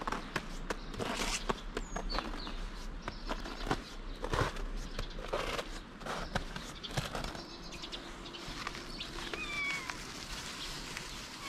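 Scattered clicks and rustles, then near the end a short meow with a falling pitch from a stray cat meowing from hunger.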